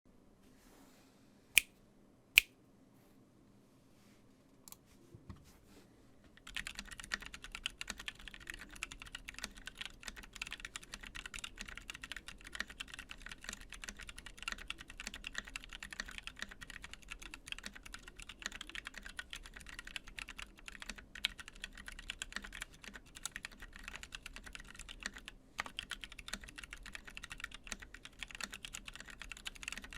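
Two sharp clicks, then from about six seconds in, fast continuous typing on a 60% mechanical keyboard with lubed Zealios V1 tactile switches, an aluminum plate and a polycarbonate case. There is a brief pause late on.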